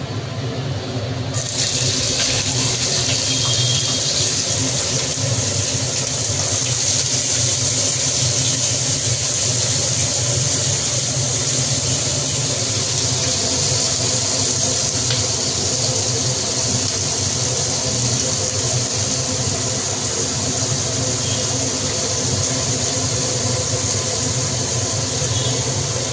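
Julienned carrot, capsicum and green beans sizzling in hot oil in a nonstick frying pan, a steady hiss that comes in suddenly about a second and a half in. Under it runs a steady low hum.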